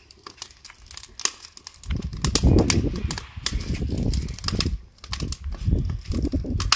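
Dry twigs and leaves crackling and snapping as they are fed into a wood-fired clay stove, with many sharp irregular clicks throughout. From about two seconds in, low rumbling surges come and go under the clicks.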